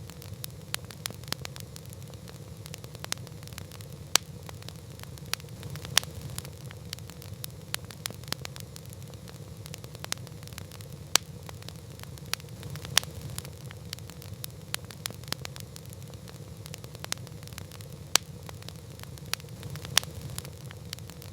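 Wood campfire crackling: a steady low rumble with constant small irregular snaps, and a louder sharp pop every couple of seconds.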